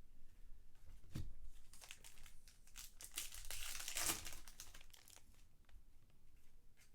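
Trading-card pack wrappers crinkling and being torn open, with scattered clicks and rustles as cards are handled; the busiest rustling comes a little past three seconds in.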